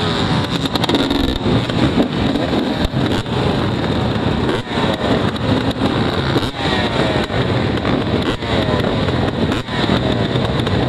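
A pack of dirt bike engines idling and revving together on a race start line, many engines overlapping, with blips of throttle rising and falling every second or so.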